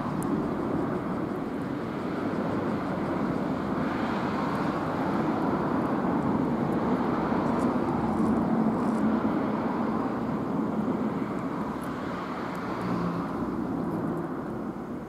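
Steady rumble of passing motor vehicle noise, swelling over several seconds and easing off near the end.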